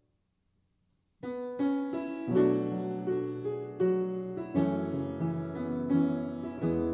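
About a second of silence, then a piano starts a hymn introduction: struck chords with a melody above, each note sounding and fading.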